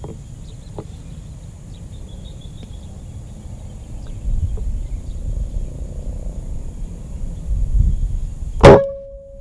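Single shot from a Mouser OD 32 stainless PCP air rifle fitted with a Bushnell moderator, near the end: one sharp crack followed by a brief ringing tone.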